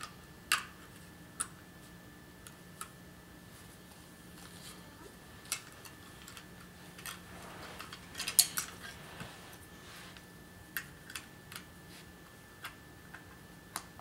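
Scattered small clicks and taps of hard plastic being handled, the loudest cluster about eight seconds in, as batteries and a battery door are fitted into a Skytech fireplace remote by hand.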